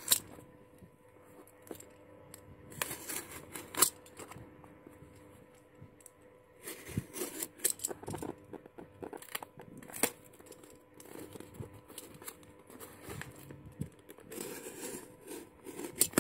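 A parcel's packaging being torn and crinkled open, with irregular sharp rips and crackles of plastic and tape.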